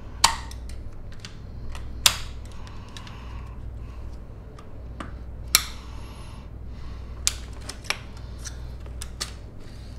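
Plastic and metal parts of a Brio insect screen's bottom roller housing clicking and tapping as the skid block and roller are slid and pressed into place: many light clicks with four sharp, louder ones spread through, over a low steady hum.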